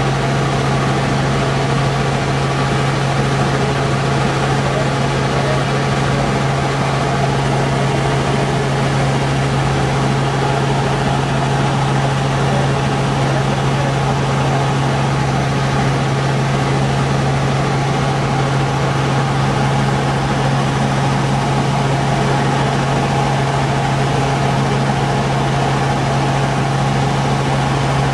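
Helicopter cabin noise in steady cruising flight: the engine and rotors' constant low hum under an even rush of air, unchanging in pitch and level.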